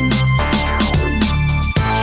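Background music with a steady beat, a low bass line and sustained tones.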